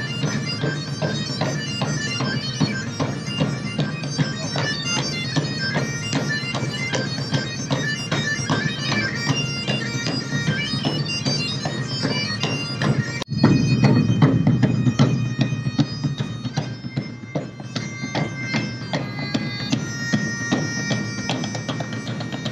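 Live Scottish street band: bagpipes playing a tune over their drone, with several large drums beating a driving rhythm. There is a sudden break about thirteen seconds in, after which the music comes back louder.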